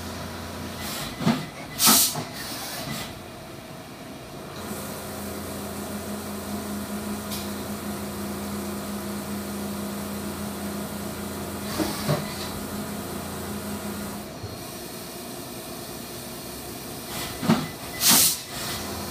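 Brother 5-axis CNC machining centre running with flood coolant spraying, with a steady machine tone through the middle. Short loud hissing bursts cut in twice near the start, once about twelve seconds in, and twice near the end.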